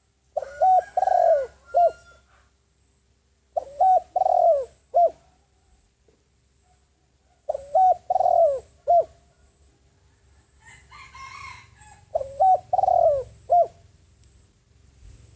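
Spotted dove cooing: four phrases of a few short notes each, repeated about every four seconds. This is the decoy dove's territorial call, used to lure wild doves in.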